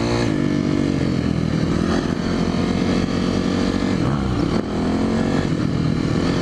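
Dirt bike engine under way, its revs rising and falling with the throttle, with a short dip in revs about four and a half seconds in.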